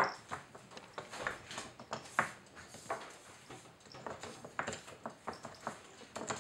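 Wooden pieces of a Nina Ottosson Dog Fighter puzzle toy clicking and knocking as a Norwich terrier puppy paws and noses at them. The light taps come irregularly, several a second.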